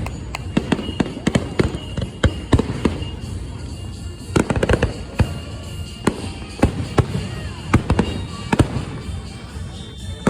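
Fireworks going off: a rapid, irregular run of bangs and crackling pops over a low rumble, with a faint whistle arcing up and down about seven seconds in.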